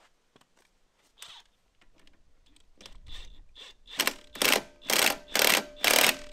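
DeWalt cordless impact wrench spinning up, then hammering in short bursts about twice a second as it drives the centre bolt of a Honda lawn mower's rear-wheel clutch, tightening it back up after the clutch bearing was replaced. A few light clicks of the socket being fitted come first.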